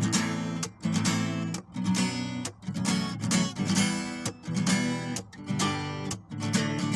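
Cort AD890CF acoustic guitar strummed in a steady rhythm, the chords briefly dropping out about once a second.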